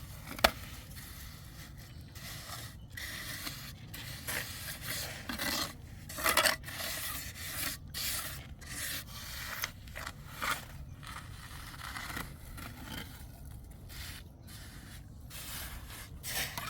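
Irregular scraping and rubbing strokes, with a single sharp knock about half a second in.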